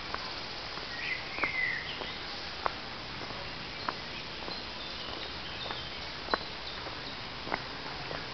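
Footsteps on a dirt forest trail, a sharp step about every second, over a steady hiss. A bird chirps a few times between one and two seconds in, and faint high calls follow in the middle.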